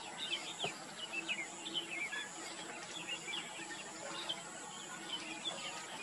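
Background bird chatter: many short, quick chirps, each sliding downward, from small birds calling on and off, over a steady high-pitched insect hiss.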